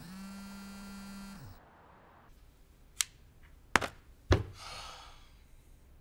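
Mobile phone vibrating on a hard car console: one steady buzz of about a second and a half whose pitch drops as the motor stops. About a second later come a sharp click, two louder knocks, and a short breathy rush.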